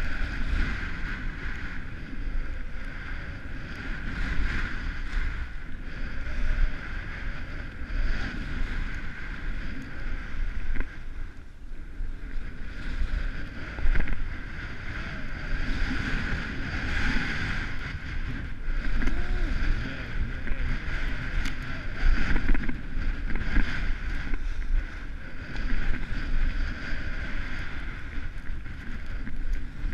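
Wind buffeting a GoPro's microphone while skiing downhill, mixed with the hiss and scrape of skis on packed snow, swelling and easing every second or two as the skier turns.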